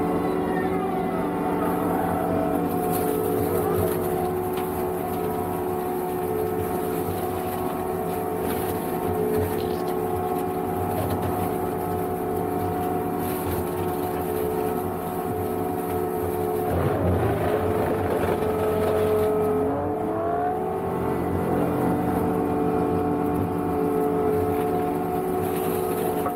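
Energreen ILF S1500 self-propelled verge mower running while cutting: a steady diesel and hydraulic drone with several steady tones, driving the boom-mounted flail mowing head. About two-thirds of the way through the tones waver and glide briefly in pitch, then settle again.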